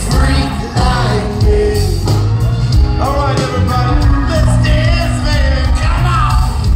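Live band playing loud amplified music, with electric guitar, drum kit and keyboard under a man singing lead into a microphone, heard from among the audience.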